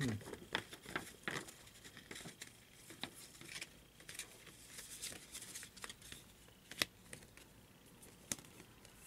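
A Blu-ray case and its packaging being handled and opened: scattered light clicks and rustles, the sharpest click about seven seconds in.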